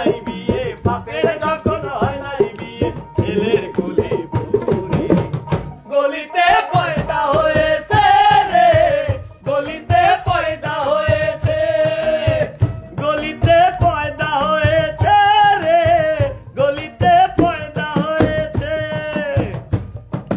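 Bengali folk song: a man singing to a small double-headed hand drum beaten in a steady rhythm. The drum breaks off briefly about six seconds in.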